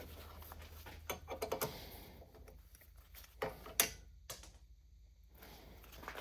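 Scattered metal clicks and knocks of hand tools being handled: a ratchet, extension and bolt extractor socket being fitted together, with two sharper knocks a little past halfway.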